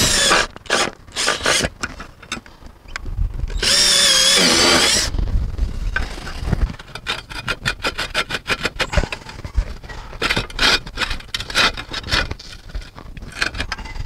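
Cordless drill running in two short bursts, at the start and again for over a second about four seconds in, driving screws for the antenna mast's mounting bracket into the roof truss. Afterwards a run of clicks and scraping from tools and hands moving on the roof tiles.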